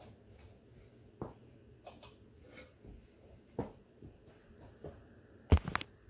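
Hampton Bay Redington IV 52-inch ceiling fan running with a faint, steady low hum and a few light clicks. Near the end a loud cluster of sharp clicks and rattles comes as the fan's light kit is switched on.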